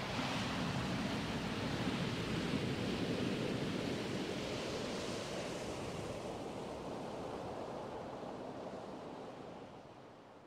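A steady wash of noise like ocean surf, with no beat or melody, ending a vaporwave track and fading out over the last few seconds.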